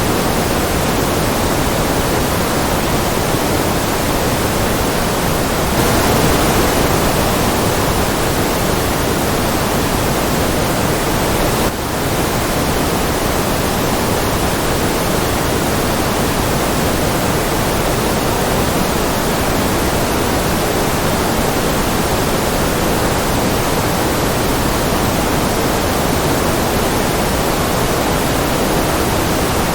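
Continuous artificial noise from a white-noise focus track: an even, steady hiss, fuller in the lower middle than at the top. It grows slightly louder about six seconds in and dips briefly about twelve seconds in.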